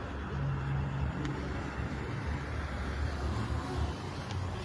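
Road traffic passing close by: a steady low rumble of car engines and tyres.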